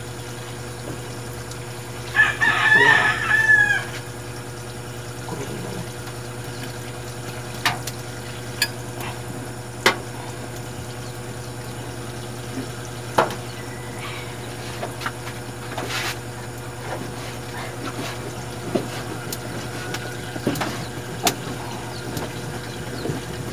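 A rooster crows once, about two seconds in, over a steady low hum. After it come only scattered light clicks and taps.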